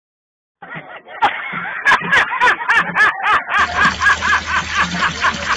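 A man laughing hard in quick repeated bursts, a dubbed-in meme laugh, starting about half a second in.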